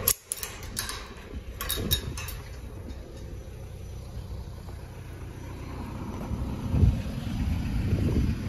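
Steel mesh drive-on ramps of a box truck being lifted and latched by hand: a few sharp metal clanks in the first two seconds, then a steady low rumble with a thump about seven seconds in.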